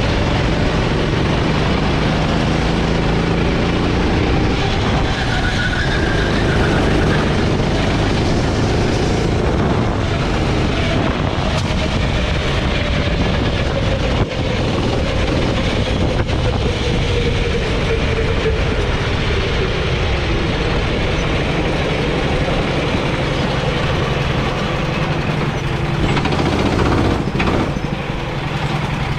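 Gasoline rental go-kart engine running at speed through the corners, its pitch easing down in places. Near the end it drops to a low, steady run as the kart rolls into the pit lane.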